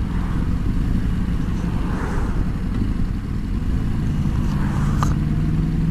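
BMW R1200GS liquid-cooled boxer twin running at a steady cruise under the rider, mixed with dense low road and wind rumble; a steady hum settles on one pitch in the second half.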